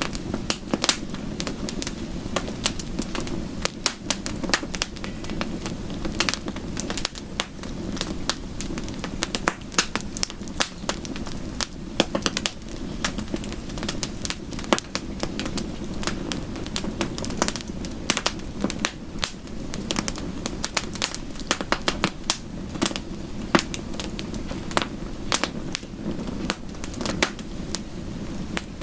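Crackling wood fire: dense, irregular sharp pops and snaps over a steady low rush.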